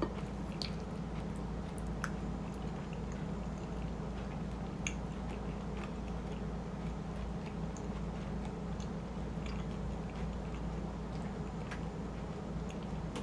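Close-miked chewing of shrimp chili with rice and soft-boiled egg, with scattered small wet clicks of the mouth, over a steady low hum.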